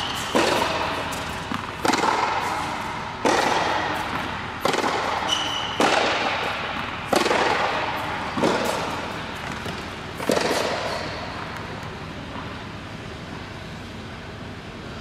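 Tennis rally on an indoor hard court: racket hits on the ball about every second and a half, each echoing in the hall, eight in all, stopping about ten seconds in when the point ends.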